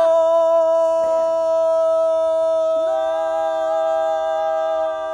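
Male voices singing one long, held "nooo" note, with a second voice joining in harmony a little higher about three seconds in.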